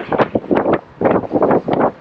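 Wind buffeting the microphone in rapid, irregular gusts.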